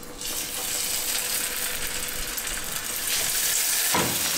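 Coated rabbit fillets sizzling as they are laid into hot olive oil in a frying pan. The sizzle grows louder about three seconds in as more pieces go in, and there is a single light knock near the end.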